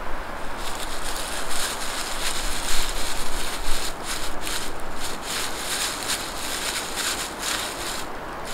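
Dry tinder being rubbed and torn apart between the hands, a dense crackly rustling with small sharp crackles. It dies down about eight seconds in.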